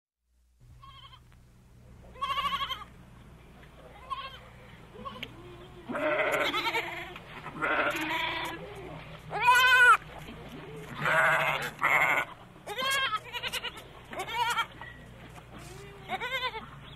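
Goats bleating: about a dozen calls of differing pitch, some overlapping, the loudest near the middle, over a steady low hum.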